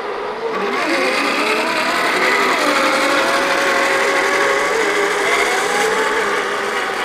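Electric motors and geared drivetrains of scale RC crawlers whining, the pitch rising and falling with the throttle. A louder hiss joins about half a second in.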